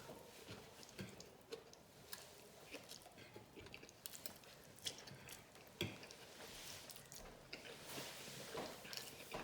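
Faint close-up chewing and wet mouth clicks of someone eating a meal of seared salmon, shrimp and rice, with a sharper click about six seconds in.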